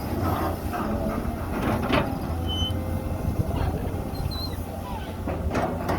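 Heavy diesel engine of an excavator or bulldozer running steadily with a low rumble, with a few short sharper sounds about two seconds in and near the end.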